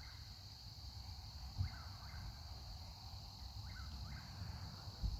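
Eastern whip-poor-will calling from a distance, repeating its short phrase about every two seconds. A steady high insect trill runs underneath.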